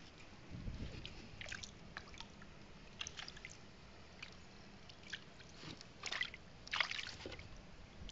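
Shallow stream water running over rounded stones, a quiet steady trickle broken by irregular small splashes and sloshes, the loudest of them near the end.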